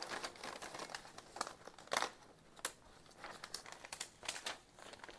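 Sheets of paper being picked up and laid together: irregular rustling with light taps, the sharpest about two seconds in.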